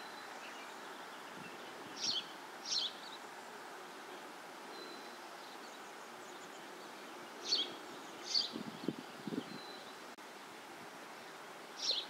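Outdoor meadow ambience: a steady soft hiss with short, high bird chirps every few seconds, about five in all. About nine seconds in comes a brief low buzz, twice, from a flying insect such as a bee close to the microphone.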